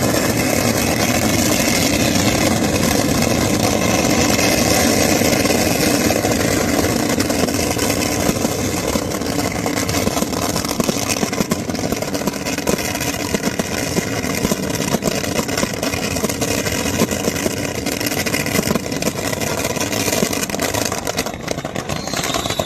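A boat engine running steadily at a constant speed.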